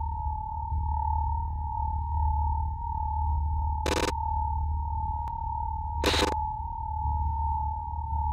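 A steady electronic tone, like a telephone line tone, held over a low throbbing hum, broken by two short bursts of hiss about two seconds apart with a click between them.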